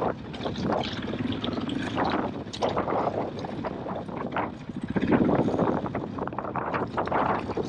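KTM EXC-F 500's single-cylinder four-stroke engine running at low revs as the dirt bike is ridden slowly over rough trail, with irregular surges of noise from the tyres on the ground; the loudest surge comes about five seconds in.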